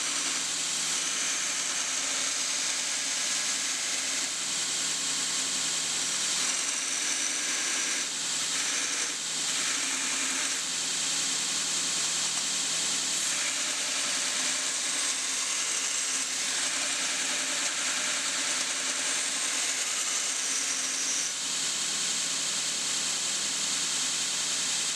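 2x72 belt grinder with a 3-phase AC motor on a VFD, grinding a piece of leaf-spring steel in a spark test: a steady hiss of the abrasive belt on the steel over a low, even hum.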